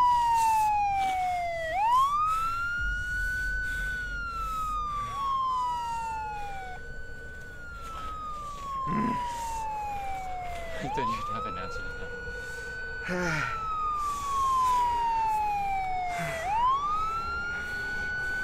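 Two emergency-vehicle wail sirens overlapping out of step, each rising quickly, holding, then falling slowly in a cycle of about four to five seconds. A few short knocks sound underneath.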